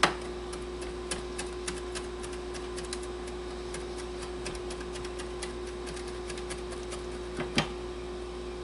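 Chef's knife chopping fresh rosemary on a plastic cutting board: a run of quick, light taps of the blade on the board, with a louder knock at the start and another near the end, over a steady hum.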